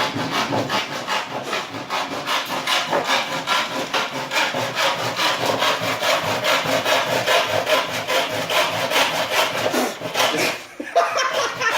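Handsaw cutting through wood in quick, regular back-and-forth strokes, with a brief pause near the end before sawing resumes.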